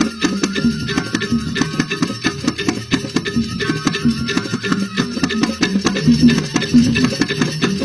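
Balinese joged bumbung music: bamboo tube xylophones played in fast, dense strokes, with percussion.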